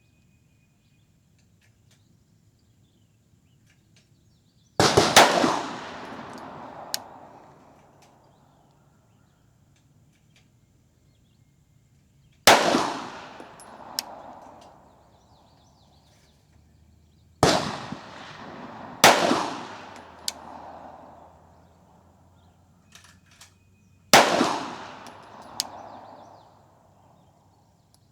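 Glock 34 pistol firing Winchester 147-grain 9mm rounds in slow, aimed single shots: five shots several seconds apart, each with an echo dying away over two to three seconds. A short sharp click follows a second or two after most shots.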